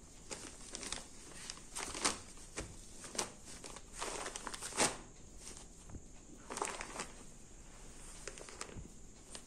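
Rustling of a folded linen cotton saree as hands smooth and turn it over: irregular soft cloth rustles, a few louder strokes in the middle.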